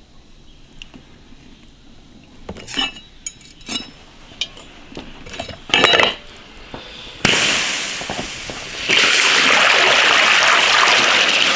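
Faint handling noises and a few small clicks, then about seven seconds in a sudden loud rush of water as the stuffed pork stomach goes into a pot of boiling water, followed by a steady, loud rolling boil.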